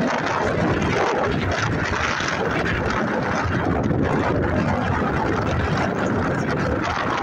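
Strong wind buffeting the microphone, a steady loud rumble and rush.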